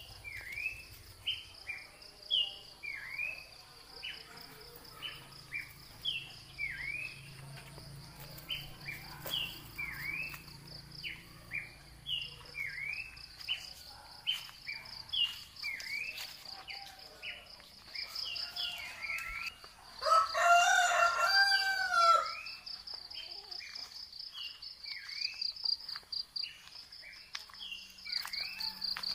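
A rooster crows once, a loud call rising and falling over about two seconds, roughly two-thirds of the way in. Throughout, insects trill steadily and a bird gives short repeated chirps about once or twice a second.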